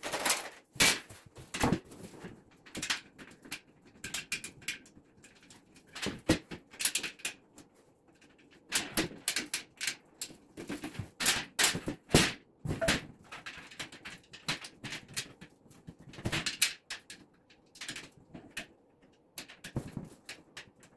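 Irregular clinks, clatters and knocks of the fire pit table's steel panels, legs and screws being handled and fitted by hand during assembly, in clusters with short pauses between.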